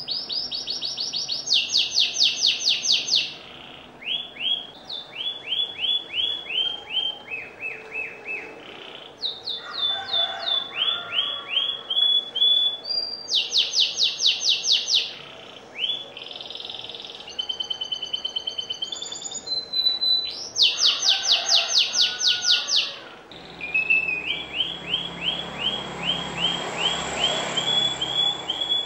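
Domestic canary singing continuously. It runs through fast trills of rapidly repeated high notes, holds each run for a second or two, then switches to a new note, with a few brief pauses.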